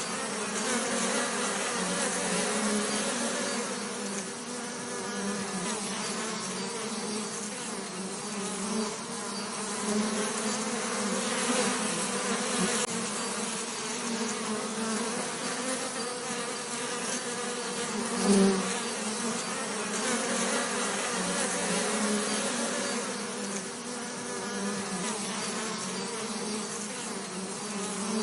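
Bees buzzing continuously: a steady, wavering drone of many wingbeats with a low hum at its core, swelling briefly louder about eighteen seconds in.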